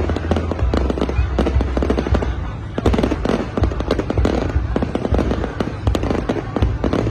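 Aerial fireworks display going off in dense, rapid succession: a continuous run of sharp bangs and crackles over a low rumble.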